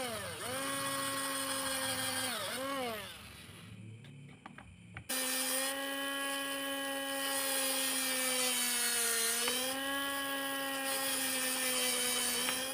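Handheld electric drill running at speed while drilling a hole in a small plate, a steady whine that sags under load. It runs for about three seconds and stops. It starts again about five seconds in and runs on, dipping in speed briefly near the nine-second mark as the bit bites.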